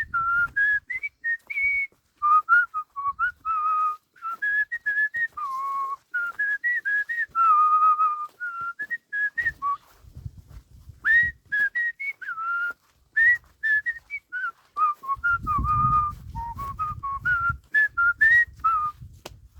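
A person whistling a meandering tune in many short notes with little glides between them. A low rumbling noise comes in briefly around the middle and again for the last few seconds.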